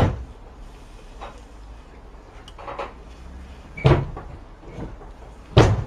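A string of short sharp bangs, the loudest at the start, about four seconds in and just before the end, with fainter ones between, over a low steady rumble.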